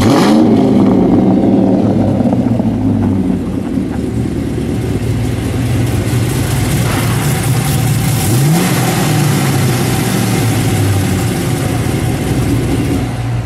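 The LS3 6.2-litre V8 in a 1967 Buick Skylark GS is running through its exhaust. It is blipped up from idle right at the start and again about eight seconds in, and falls back to a steady idle in between.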